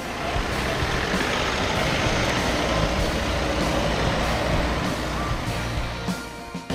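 Volkswagen Caddy van driving off across paved ground: steady engine and tyre noise that swells through the middle and fades near the end, with quiet music underneath.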